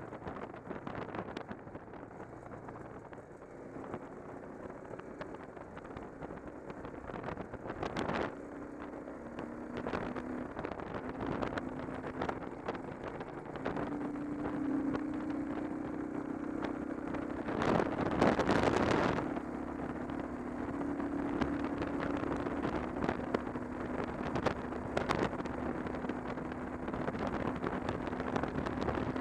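Cruiser motorcycle engine running at road speed under a constant rush of wind across the microphone, its note holding steady with small shifts in pitch. About two-thirds of the way through, a louder rush lasts a second or two.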